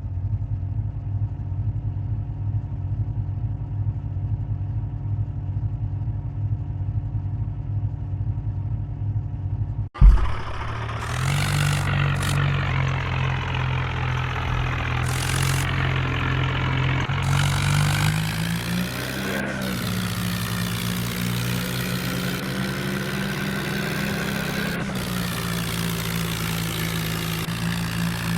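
Bulldozer's diesel engine running steadily. About ten seconds in, it cuts abruptly to a louder, rougher engine sound whose pitch rises briefly a little after eighteen seconds in, then settles.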